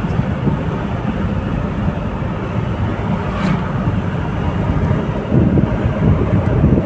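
Cabin noise of a vehicle driving on a paved road: a steady low rumble of tyres and engine. Louder low bumps come in near the end.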